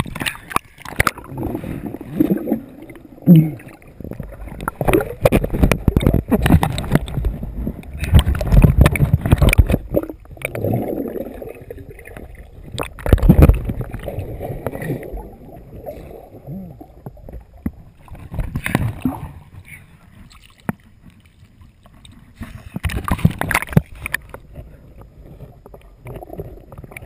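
Water sloshing and gurgling around an action camera held at the surface and dipped underwater, coming in uneven surges with occasional sharp knocks.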